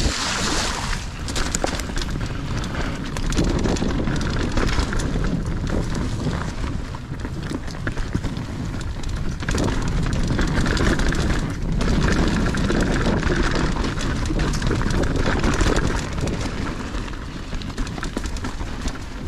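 Mountain bike ridden over a rough dirt trail: wind rushing over the microphone while the tyres and frame rattle and clatter over bumps, steady throughout with loud and quieter stretches.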